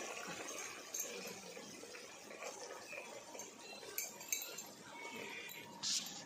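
Faint bubbling of a curry simmering in an iron kadai, with a few light clinks.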